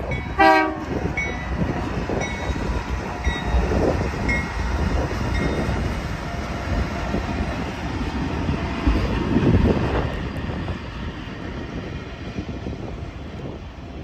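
BNSF diesel locomotives passing with a steady rumble of engines and wheels, loudest about nine to ten seconds in and easing off after. A short horn blast sounds about half a second in, and a faint ding repeats about once a second for the first five seconds.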